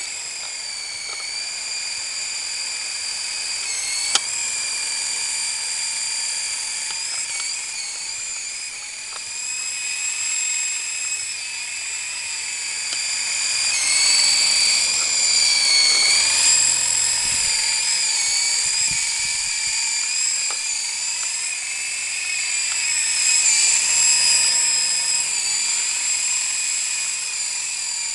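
Syma S033G RC coaxial helicopter's small electric rotor motors whining high-pitched in flight, the pitch wavering slightly and the sound growing louder as it passes overhead about halfway through and again later. A single sharp click about four seconds in.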